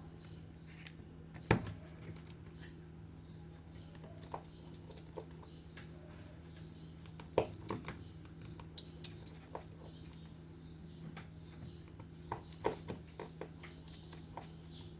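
Small hand tools clicking and tapping on an iPhone 7 during a screen repair, in irregular scattered clicks with a few sharper ones, over a steady low hum.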